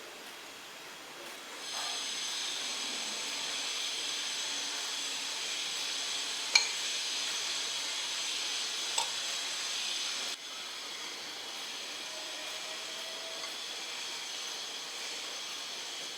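Steady sizzling hiss of food frying in hot oil, louder from about two seconds in until about ten seconds, with two sharp clicks in between.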